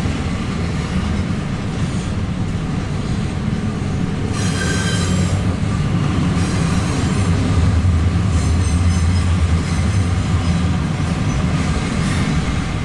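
Double-stack intermodal freight cars of a CSX train rolling past on the rails with a steady low rumble. Wheel flanges squeal briefly about four seconds in, and again faintly near nine seconds.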